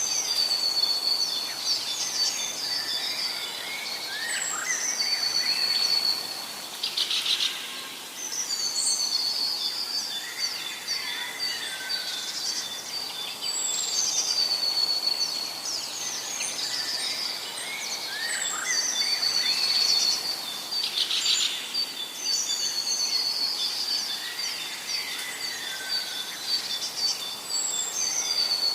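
Many birds chirping and calling at once: high trills, twitters and short whistles overlapping without a break, with a similar run of calls coming round again about every seven seconds.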